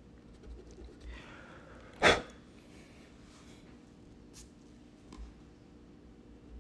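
A person sneezes once, about two seconds in, a short sharp burst after a brief breathy intake.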